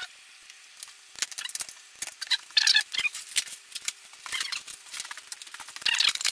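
Handling noise as a fibreglass propeller duct is worked on against an outboard motor's lower unit: irregular light squeaks, scrapes and clicks, sparse at first, then denser from about a second in, with a cluster about halfway and another near the end.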